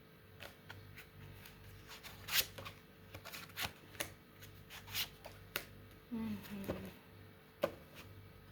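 Tarot cards being shuffled and handled: an irregular run of sharp card snaps and flicks, the loudest about two and a half seconds in and again near the end.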